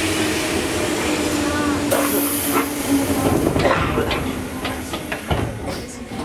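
Electric commuter train at a station platform. A steady whine slowly falls in pitch, a burst of air hiss comes about two seconds in, and a few clicks and knocks follow.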